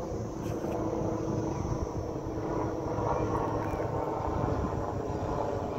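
Helicopter flying high overhead: a steady, distant drone of its engine and rotor over a low rumble.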